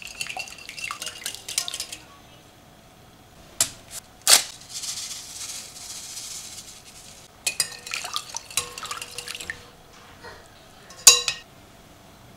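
Wire whisk clinking rapidly against a glass mixing bowl while beating milk, egg and yeast. Midway there are a few sharp clicks, then a soft steady hiss of vanilla sugar poured from a paper packet into the liquid. The quick whisking clinks come back, and there is one loud clink near the end.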